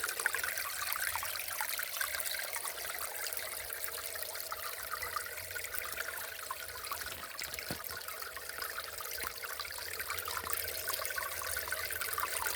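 Water trickling and babbling in a small stream, steady throughout.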